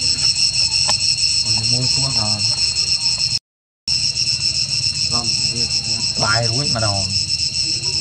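Steady, loud, high-pitched buzzing of an insect chorus, pulsing slightly. A few faint voice-like calls come and go beneath it. The sound cuts out completely for a moment a little under halfway.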